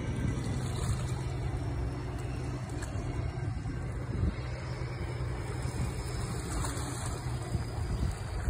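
Motorboat engine running: a low, steady drone.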